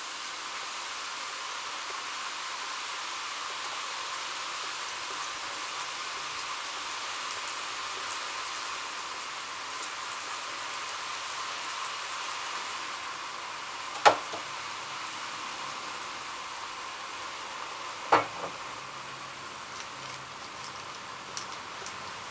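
Steady hiss of vegetables sizzling in a hand-hammered wok over a homemade high-output gas burner. A little past halfway, and again about four seconds later, a metal utensil knocks sharply against the wok.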